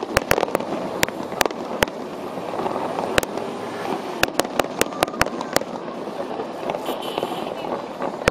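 Aerial firework shells bursting: sharp bangs at irregular intervals, several a second at times, over a steady background of noise.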